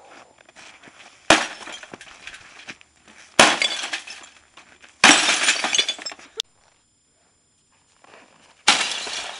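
An old wood-cabinet CRT television being smashed: four separate loud crashes, each a sudden hit followed by about a second of breaking glass and rattling debris.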